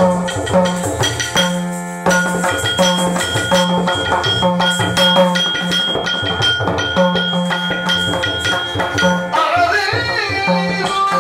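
Upbeat background dance music with a steady, bouncing bass line and a quick rhythm.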